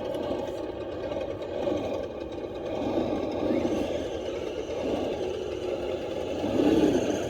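Radio-controlled rock crawler's electric motor and gears whining as it drives, the sound swelling louder near the end.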